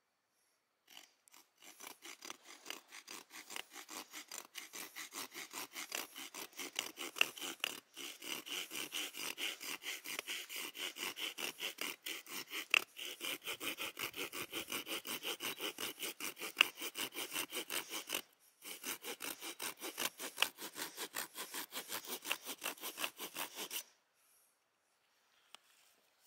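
Coarse-toothed folding saw cutting kerfs into a split wooden stick with quick, short back-and-forth strokes, about five a second. The sawing breaks off briefly twice and stops about two seconds before the end.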